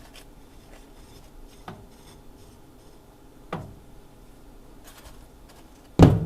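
Soft rubbing and handling of a metal hand scraper, with a light knock twice about two seconds apart and a loud knock near the end.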